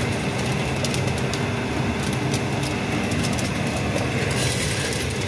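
Double-chamber popcorn roaster machine running: a steady mechanical rumble from the turning roasting drum, with a dense rattle of small clicks as popped corn spills down the mesh sieve into a basket.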